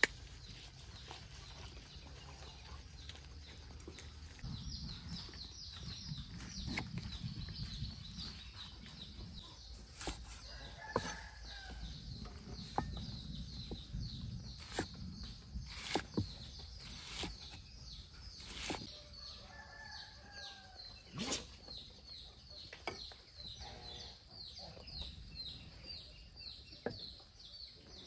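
Chickens clucking now and then over a rapid run of high chirping, with about ten sharp, irregularly spaced knocks of a knife striking a wooden chopping block.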